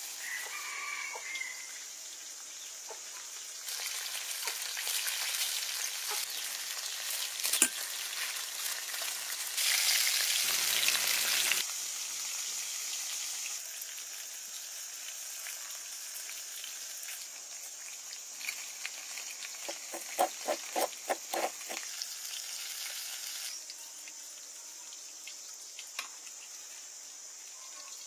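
Chicken pieces frying in hot oil in a pot: a steady sizzle that swells louder for several seconds in the first half, then settles back.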